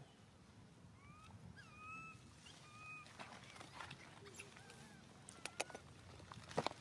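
Baby macaque crying: about five short, high-pitched squeals, each rising and then holding level, followed by a few sharp taps near the end.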